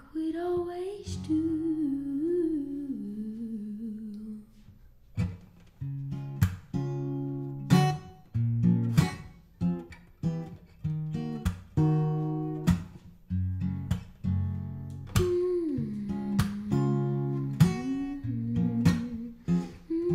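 Acoustic guitar playing a rhythmic pattern of strummed chords, each strum ringing on. A wordless hummed vocal line glides over the guitar at the start and comes back about three-quarters of the way through.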